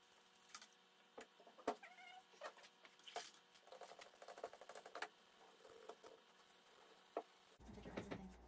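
Faint clicks and scraping of metal garden pruners being handled and scrubbed clean, with a few short squeaks in between. The scrubbing gets louder near the end.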